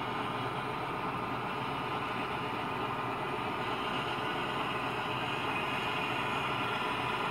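Model diesel locomotive's MTH Proto-Sound 2 engine sound playing from its onboard speaker, a steady rumble with the train running forward along the track.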